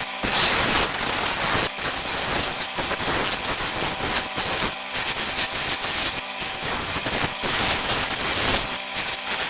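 Wood being worked on a lathe: a steady, loud abrasive scraping of a tool or abrasive against the spinning wood, with short irregular breaks as it is pressed and lifted.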